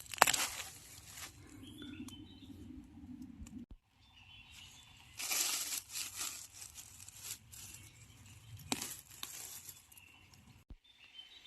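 Rustling and crackling of dry leaves and bamboo undergrowth as someone works through it by hand. There is a sharp snap right at the start and another about nine seconds in, with a louder bout of rustling in the middle.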